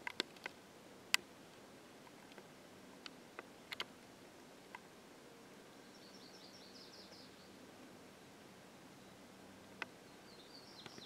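Quiet outdoor background with a bird giving a rapid run of short, high chirps about six seconds in and again near the end. A few sharp clicks, the loudest sounds, come mostly in the first few seconds, with one more near the end.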